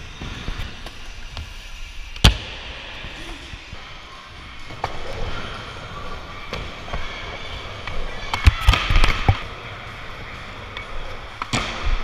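Skateboard wheels rolling across a smooth skatepark surface, cut by sharp cracks of boards hitting the ground: one about two seconds in, a cluster around eight to nine seconds, and another near the end.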